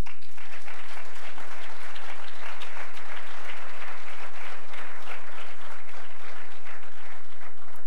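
Audience applauding, many hands clapping at once, stopping near the end.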